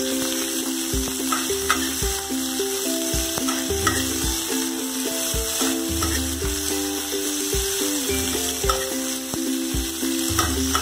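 Onion rings sizzling as they fry in hot oil in a kadai, with a metal spatula stirring and clicking against the pan now and then. Background music plays underneath.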